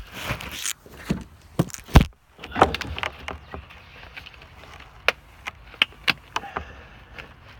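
Handling knocks and scraping as a rigid metal dryer vent pipe is worked into a tight wall opening: one heavy thud about two seconds in, then scattered sharp clicks and rubbing.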